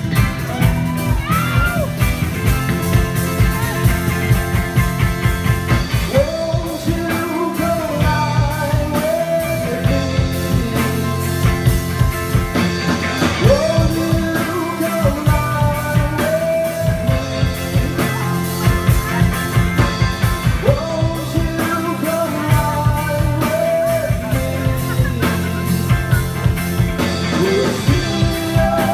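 A live indie-funk rock band playing loudly through a PA: electric guitars, bass guitar and drum kit with a steady beat, and a voice singing over them.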